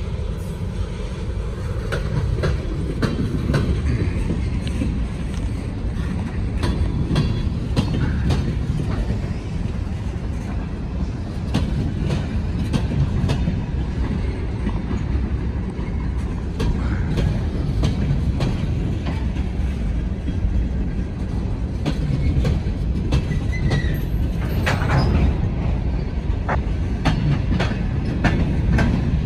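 Freight train moving on the rails: a steady low rumble with wheels clicking over rail joints, and a brief wheel squeal late on.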